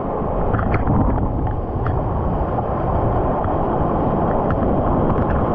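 Seawater sloshing and rushing around a camera held at the water's surface, with the surf's whitewater foaming and wind on the microphone, dotted with small splash ticks.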